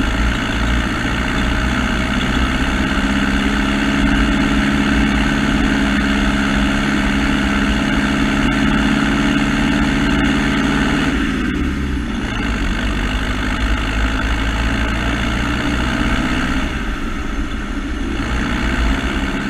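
An engine running steadily. About eleven seconds in its note drops for a moment, then settles back.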